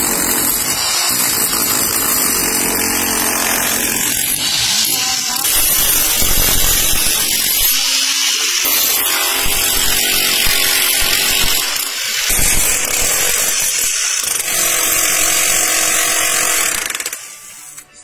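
Hand-held electric power tool running loud and steady against concrete, chipping away at the edge of a slab. The noise drops off sharply about a second before the end.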